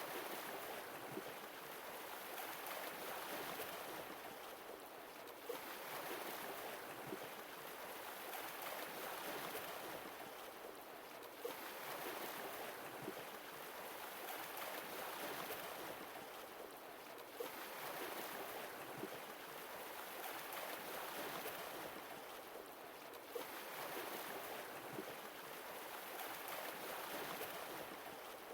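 Sea waves washing in, a new wave about every six seconds, each one starting with a short splash, swelling and then fading.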